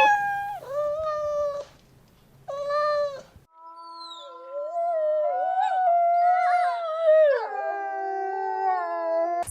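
Animal calls: three short cries of even pitch, each under a second, then several voices howling together in long, overlapping, wavering calls.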